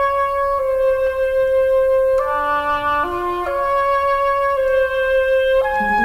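Gentle background music: a soft melody of held notes over a quiet lower part, the same short phrase repeating about every four seconds. A rising sweep begins near the end.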